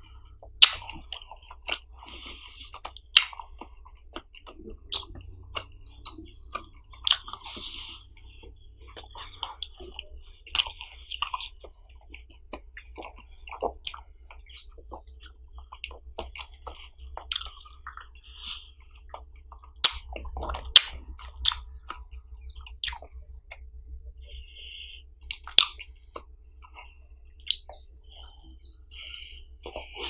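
Close-miked eating of a frozen ice pop: sharp bites and crunches into the ice, chewing, and wet mouth smacks and slurps, scattered irregularly.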